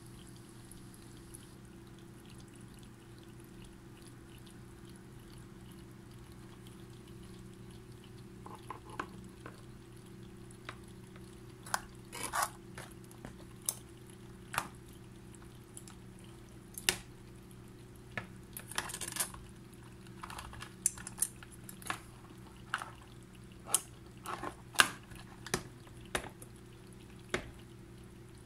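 Live blue crabs moving in a plastic tub, their legs and claws knocking and scraping against the plastic and each other. The irregular sharp clicks and clacks begin about a third of the way in and grow more frequent, over a steady low hum.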